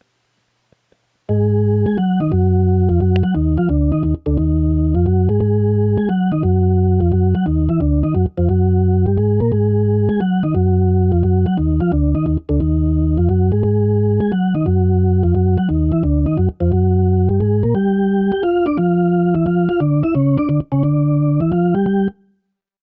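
Soloed jazz organ track playing a repeating chord riff, its phrases breaking off briefly about every four seconds. It starts about a second in and stops just before the end.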